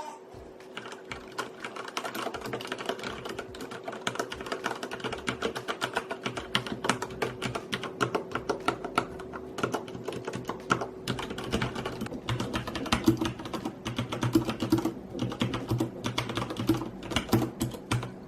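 Rapid, continuous typing on a Corsair Strafe RGB mechanical keyboard with Cherry MX Red switches, a dense stream of key clicks and bottoming-out clacks. The switches are linear, smooth, with no click mechanism.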